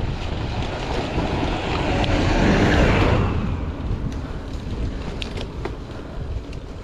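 Wind buffeting the microphone of a riding bicycle vlogger's camera, a steady rumbling rush. A louder rush swells about two seconds in and fades just after three seconds.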